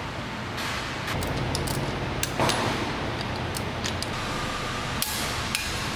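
Scattered metallic clicks and knocks of hand tools, a ratchet among them, working on an engine, over steady workshop noise, with a louder knock about two and a half seconds in.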